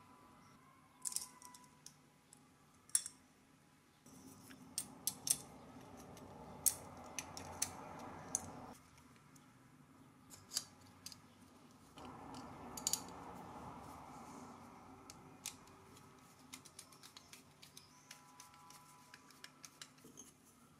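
Faint clicks and clinks of small brass saw parts, screws and nuts being handled and fitted together, with a screwdriver driving a small screw; a soft scraping hiss comes and goes twice.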